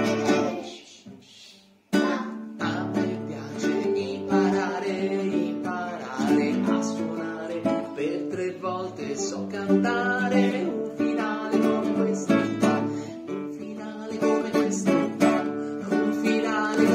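A man singing to his own strummed acoustic guitar. A single strum at the start rings out and fades, then steady strummed chords and singing start about two seconds in.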